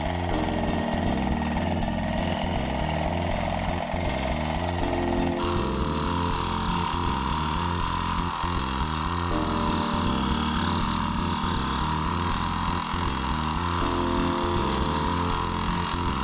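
Scroll saw running steadily, its blade cutting through oak or ash hardwood along a pattern line.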